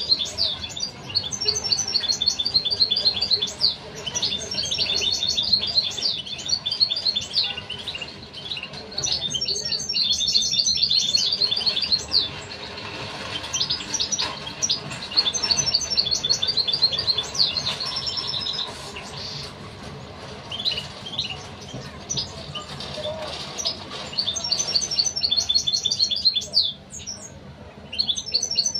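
European goldfinches chirping: rapid, high chirps in bursts of a few seconds, with short pauses between them.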